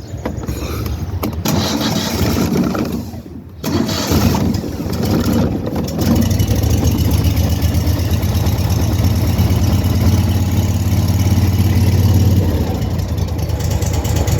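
Cub Cadet 2550 riding lawnmower engine being started: it cranks over for a few seconds, catches about four seconds in, and settles into a steady run.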